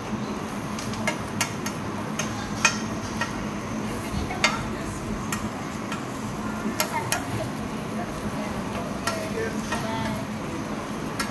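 Oyster omelette sizzling in hot oil in a large flat wok while a metal spatula scrapes and chops through the egg, making irregular sharp clicks of metal on the wok, over a steady low hum.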